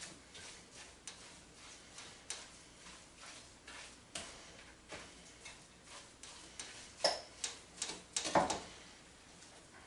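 Irregular light clicks and knocks of kitchen utensils, roughly one or two a second. A louder cluster of knocks and a short scrape come about seven to eight and a half seconds in.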